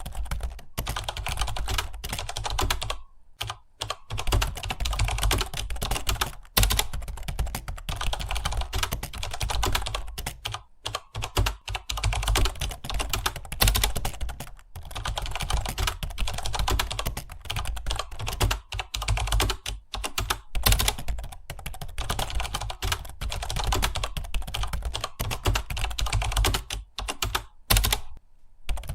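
Computer keyboard typing: rapid, continuous key clicks at a fast typing pace, with a few short pauses where the keys stop for under a second.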